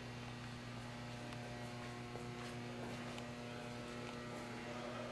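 Steady low electrical hum with faint room tone and a few light ticks.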